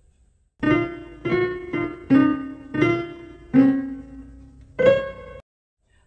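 Piano playing a short phrase of about seven notes, the last one higher, then cutting off suddenly.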